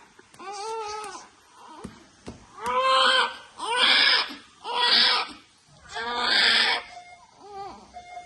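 Newborn baby crying: a short cry, then four loud wails about a second apart, each rising and falling in pitch, and a brief weaker cry near the end.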